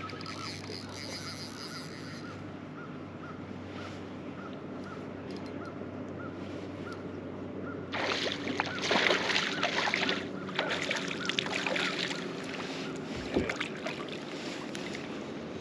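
Bass boat's trolling motor humming steadily while a fishing reel is cranked with a light chirp about twice a second. About eight seconds in, a hooked fish starts splashing and thrashing loudly at the surface, with a dull thump a few seconds later.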